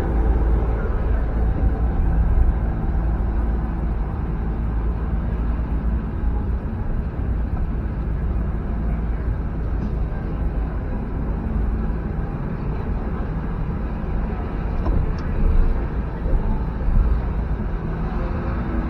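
Toyota Prius driving on city streets, heard from inside the cabin: a steady low rumble of road and car noise.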